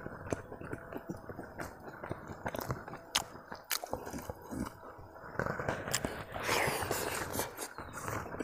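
A person eating chicken curry by hand, chewing with scattered sharp clicks, close to a clip-on microphone. The chewing grows denser and louder about halfway through.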